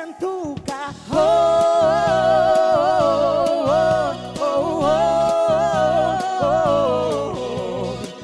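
A man and a woman sing a Latin pop duet with long held notes, over instrumental backing. The singing pauses briefly and comes back in about a second in.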